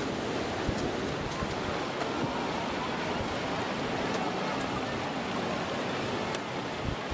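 Steady rush of floodwater, with wind buffeting the microphone in low gusts near the start and end.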